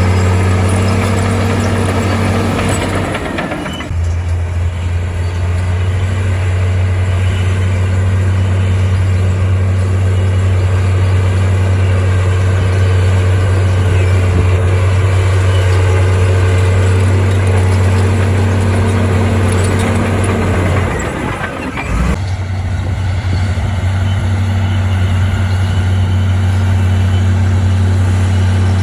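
Heavy diesel engine of earthmoving machinery running steadily with a loud low drone. It drops briefly about three to four seconds in, and again around twenty-one seconds, where the pitch slides down before picking back up.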